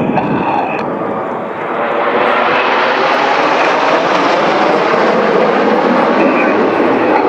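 Red Arrows' BAE Hawk T1 jets flying past in formation: a steady jet rush that swells about two seconds in and stays loud.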